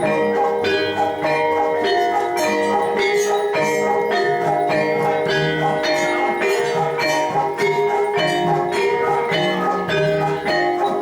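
Javanese gamelan ensemble playing jathilan accompaniment: struck bronze keyed and gong-chime instruments ringing in a steady, even rhythm of repeated notes over sustained pitches.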